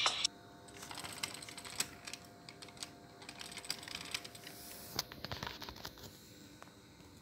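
Faint, scattered plastic clicks and light taps: a die-cast toy car being pushed by hand over LEGO baseplate studs and bricks.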